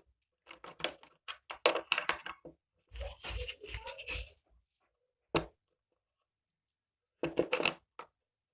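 Handling noise of small items, most likely the sewing machine's accessories such as its plastic tray, being picked up and set down: rustling and clattering in three short bursts, with a single sharp click about five seconds in.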